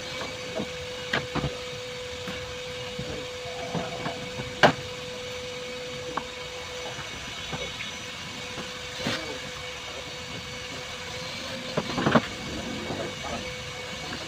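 Car body-shop work noise: a steady hum with a handful of sharp, scattered knocks, the loudest about four and a half seconds in and another cluster near the end.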